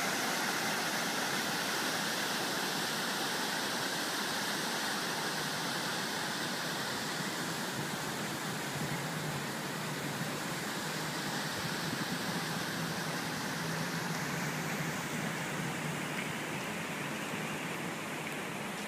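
Steady rushing splash of the Revson Fountain's ring of water jets falling back into its basin, easing slightly toward the end. A low hum joins beneath it about halfway through.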